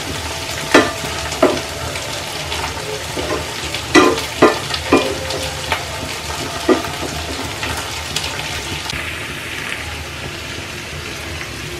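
Diced radish and onion sizzling in oil in a nonstick frying pan, with a wooden spatula stirring and knocking against the pan in irregular strokes; the stirring stops about two-thirds of the way through, leaving a steady sizzle.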